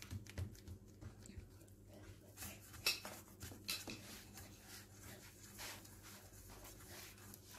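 Hands patting and pressing shredded kunafa (kataifi) dough flat in a metal baking tray: a faint, irregular rustling and patting, with a sharper tap about three seconds in.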